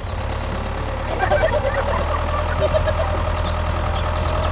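Tractor engine idling steadily, an even low rumble, with a few short high-pitched sounds over it about a second in.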